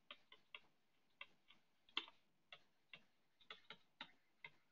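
Faint, irregular clicks and taps of a stylus on a tablet's touchscreen as words are handwritten, a few strokes a second.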